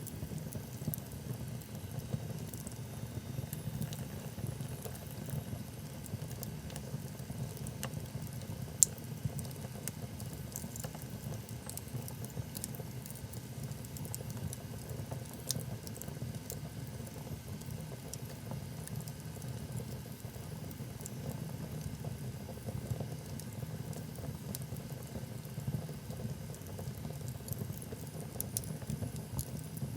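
Wood fire burning in a fireplace: a steady low rush of flames with small, irregular crackles and pops from the logs, and one louder pop about nine seconds in.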